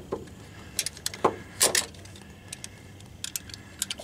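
Light metallic clicks and clinks, about half a dozen spaced unevenly, from hands working an electric fuel pump's fittings and wire connections while it is being removed.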